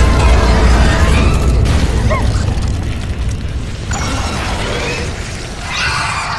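Film sound effect of an explosion: a sudden boom followed by a heavy low rumble that slowly dies away, with a music score underneath and a second noisy swell near the end.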